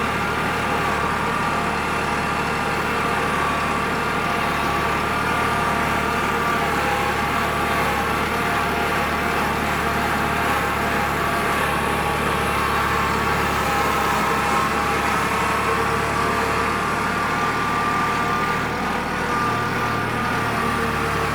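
Small tractor engine running steadily at a constant speed, with a steady whine over a low hum.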